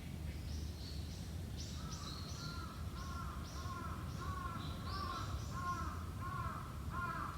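Birds calling: a run of short, arched calls, about two a second, starts about two seconds in and carries on, with higher thin chirps above it, over a steady low rumble.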